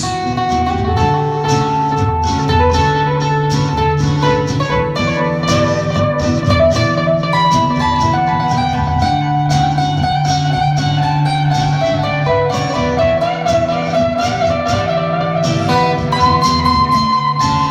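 Live acoustic band playing an instrumental break, with guitars carrying a picked melody over a steady bass line and no singing.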